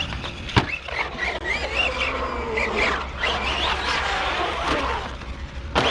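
Brushless electric motor of a Team Associated Rival MT10 RC monster truck whining up and down in pitch as the throttle is worked, with its tyres on concrete. A sharp knock about half a second in and another near the end, as the truck hits or lands.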